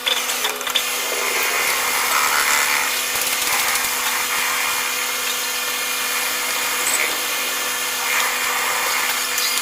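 CNC milling machine cutting metal: a steady hum from the spindle with a continuous hiss of the cutter working the part.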